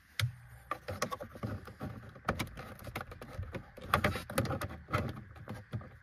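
Red plastic trim removal tool prying and scraping at the dashboard trim panel under an Audi A6 C7's instrument cluster: irregular plastic clicks and knocks throughout.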